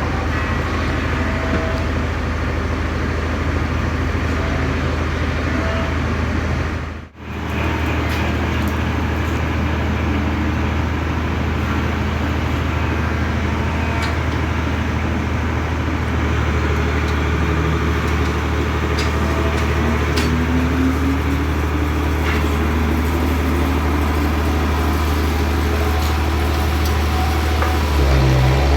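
Bandsaw sawmill running with a steady engine hum. A faint rising whine comes about two-thirds of the way through, and the sound cuts out for an instant about seven seconds in.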